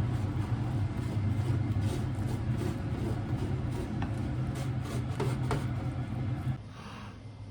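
Steady low machine hum with a few light clicks and taps over it; the hum cuts off suddenly about six and a half seconds in.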